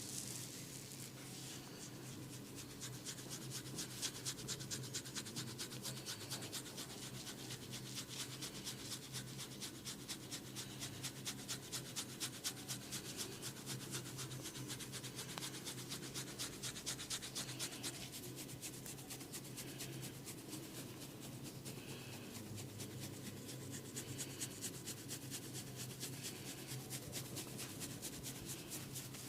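Quick, even rubbing and scratching strokes on a person's hair and scalp in a head massage, a few strokes a second.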